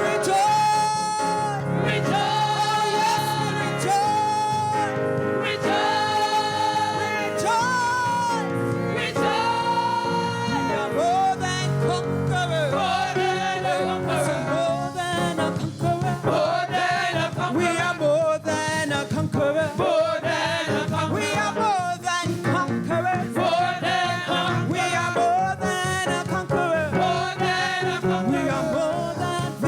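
Gospel song with singing over instrumental backing: long held vocal notes with vibrato in the first half, then busier melodic singing.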